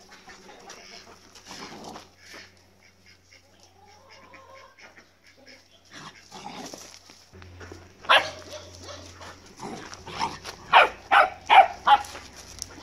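Dog barking in play: one sharp bark about eight seconds in, then a quick run of about five barks near the end.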